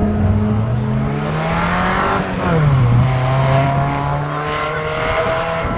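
Hillman Imp's rear-mounted four-cylinder engine revving up as the car accelerates on the circuit. The pitch climbs for about two seconds, falls sharply, then holds steadier.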